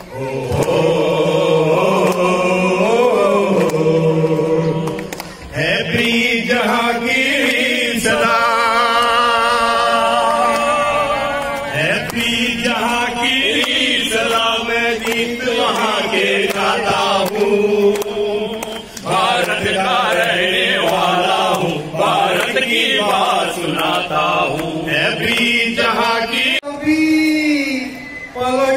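Men singing a Hindi patriotic song, with long held, chant-like notes.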